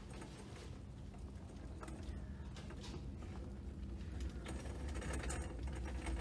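Plastic shopping cart rolling along a store's hard floor: a steady low rumble with scattered light rattles and clicks, over a faint hum of store ambience.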